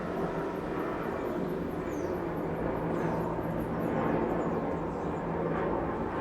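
City traffic rumbling steadily below a balcony, with a steady low hum, a faint even high ticking, and a short bird chirp about two seconds in.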